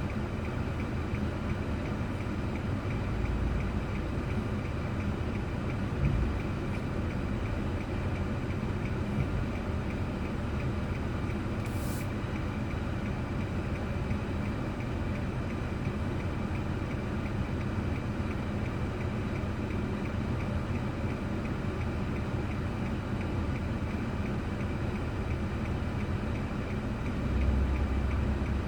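Car driving, with a steady drone of engine and tyre noise heard inside the cabin. A short sharp click about twelve seconds in, and a few brief low bumps.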